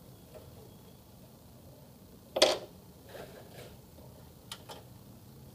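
A sharp knock about halfway through, followed by a few lighter clicks, over a faint low hum.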